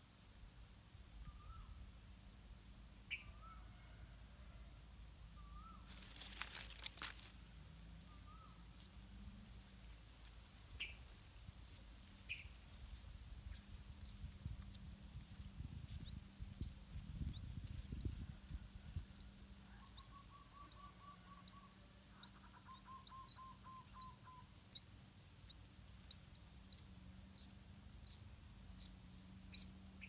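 Yellow-vented bulbul nestlings begging with thin, high cheeps repeated two or three times a second. There is a brief rustle about six seconds in and two short, lower trills past the middle.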